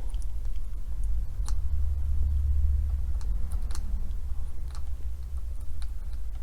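A few light, scattered clicks and taps from handling a diecast model car's wheel, over a low steady hum.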